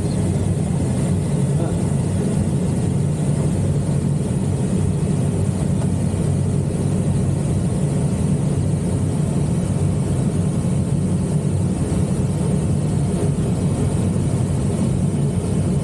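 Steady rush of airflow around the canopy of an ASK 21 two-seat glider in flight, heard inside the cockpit, with an even low rumble and no engine.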